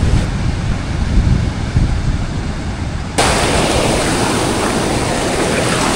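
Ocean surf breaking on coastal rocks. For about three seconds there is a low rumble, then a much louder, hissing rush of surf starts abruptly.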